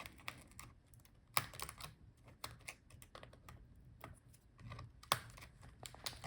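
Small irregular plastic clicks and taps of hands and a tool working the ribbon-cable connectors inside an opened laptop, as the touchpad and keyboard cables are disconnected from the motherboard, with two sharper clicks, about a second in and near the end.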